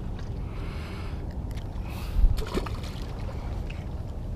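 Steady low rumble of wind and water at the rocky shoreline, with a short hiss about a second in and a single low thump a little past two seconds.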